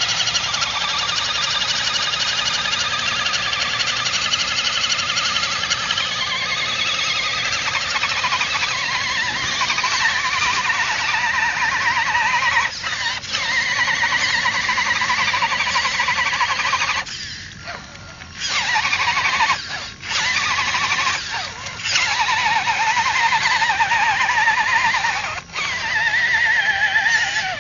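Electric motor and gear drive of an RC scale crawler truck whining as it is driven through mud. The pitch wavers up and down with throttle and load, and the sound cuts out briefly a few times in the second half as the throttle is let off.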